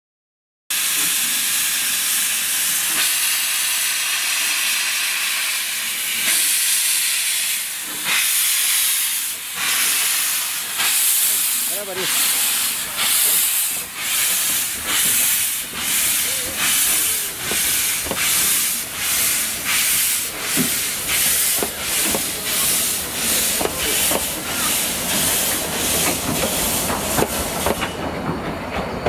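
Vale of Rheidol narrow-gauge steam tank locomotive hissing loudly with steam, then setting off with exhaust chuffs that start slow and quicken steadily as it pulls away.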